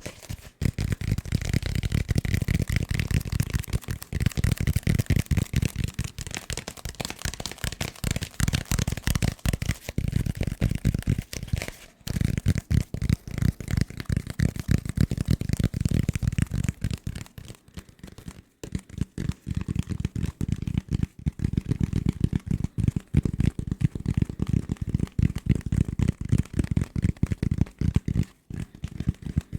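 Fast, aggressive tapping on assorted desk objects, many rapid taps a second, broken by a few brief pauses.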